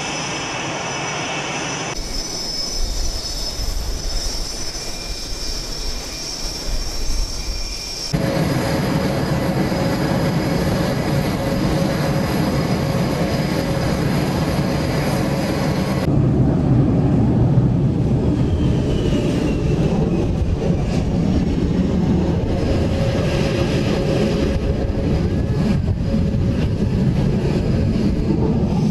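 F/A-18 fighter jet engines running: a steady rush with a high whine, changing abruptly about two, eight and sixteen seconds in.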